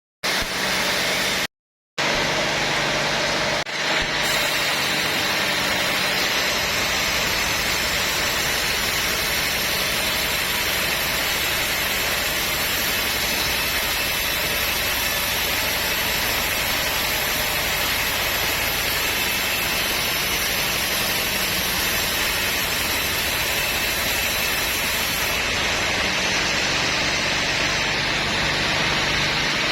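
Sawmill machinery running steadily: a loud, even mechanical noise with an engine hum underneath. The sound drops out completely twice, very briefly, near the start.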